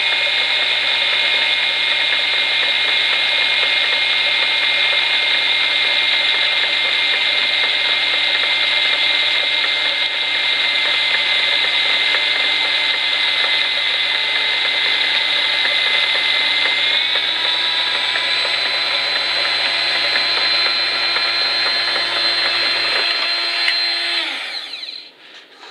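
Handheld die grinder running at high speed with a thin bit cutting into a rubber stopper turning in a lathe chuck: a steady high-pitched whine over a low machine hum. The whine steps slightly in pitch about two-thirds of the way through, then the hum stops and the whine dies away near the end as the tools are switched off.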